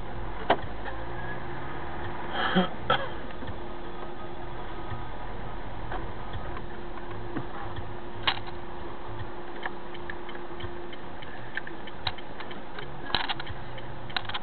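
Inside a moving car's cabin, picked up by a dashcam's built-in microphone: a steady low hum and hiss from the car running, with sharp clicks and knocks at irregular intervals, a few of them close together.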